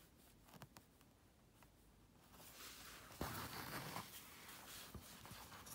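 Faint rustle of embroidery thread being drawn through cotton fabric stretched in a wooden embroidery hoop, a soft rasp that starts about halfway through and is strongest a little later, after a few light handling clicks.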